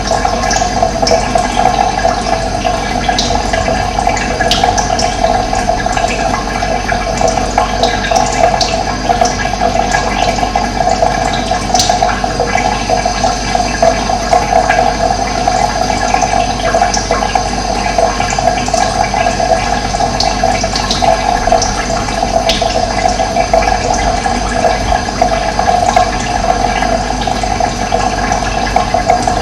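Steady rush of running water, with short bird chirps scattered over it.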